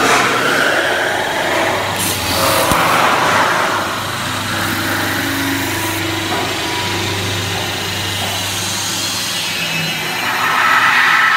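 CNC metal spinning lathe running: a steady machine hum under the hissing scrape of the forming roller working the spinning metal cone. The hiss is louder about two to four seconds in and again near the end.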